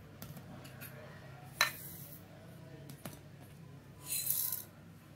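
Small steel bowls handled against a steel grinder jar: a sharp metal clink about a second and a half in, a lighter tap near three seconds, then a short hissing rush about four seconds in as dry-roasted seeds are tipped from a bowl into the jar.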